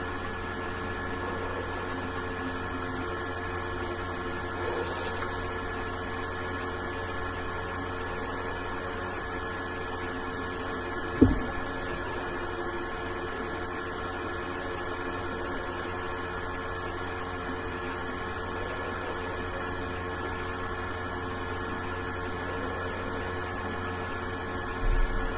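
Steady electrical hum with several fixed tones. A single sharp knock about eleven seconds in, and a few softer bumps near the end.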